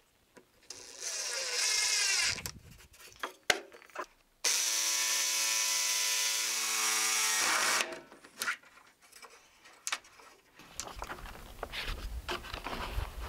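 Ryobi cordless drill briefly driving a hinge screw, its motor rising in pitch for about a second and a half, followed by a few clicks and knocks. About four seconds in, a Ryobi ONE+ 18V cordless jigsaw runs steadily for about three seconds, cutting an access-door opening in plywood.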